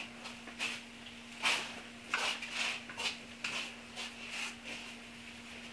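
Irregular rustles and light scuffs of hand work, with cloth being handled among them, over a steady low hum.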